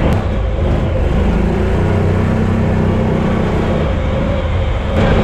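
Engine of an Argo 8x8 amphibious vehicle running steadily as it drives, with a low, even engine note.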